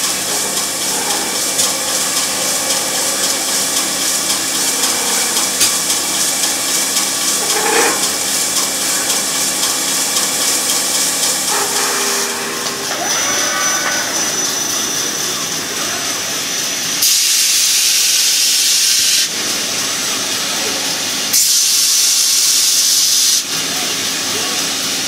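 Robotic cutting and deburring cell working a metal casting for an industrial vehicle: steady hissing machine noise with a few steady tones, and two louder hissing passes of about two seconds each roughly two-thirds of the way through.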